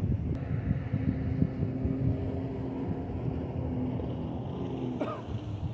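Wind buffeting the microphone over the steady drone of a passing motorboat's engine, with a short rising squeak about five seconds in.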